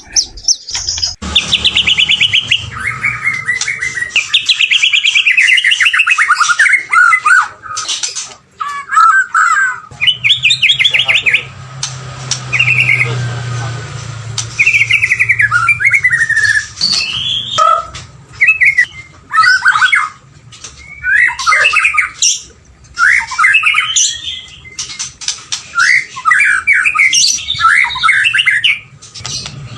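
White-rumped shama (murai batu) singing: a long run of varied, loud phrases of rapid trills, slurred whistles and chattering notes, each a second or two long with short pauses between.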